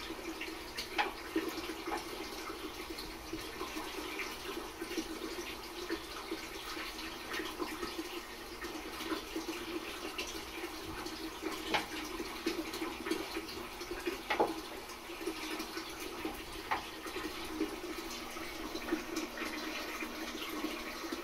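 Aquarium water running and burbling steadily, with a few faint clicks scattered through it.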